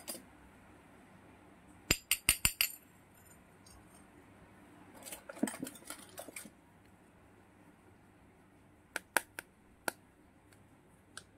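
Miniature stainless-steel toy pots and bowls clinking as they are taken out and set down: a quick run of sharp metallic clinks about two seconds in, a stretch of scraping and rattling in the middle, then a few single light clicks near the end.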